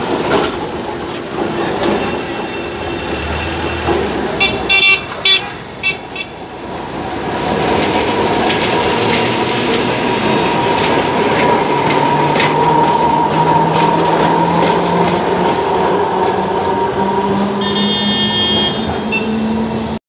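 Street traffic with a tram passing: several short horn toots about five seconds in and more near the end. From about the middle, a steady whine and a low hum that rises slowly in pitch as the tram gets under way.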